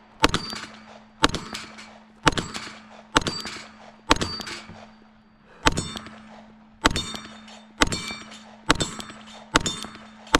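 Pistol shots at steel targets, about ten in a row roughly a second apart with a short pause near the middle, each followed by the ringing of the struck steel plate. A steady low hum runs underneath.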